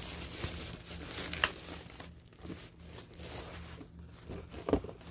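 Wrapping around a diecast car crinkling and tearing as it is pulled off by hand, in irregular rustles. There is a sharp crackle about a second and a half in and a dull knock near the end.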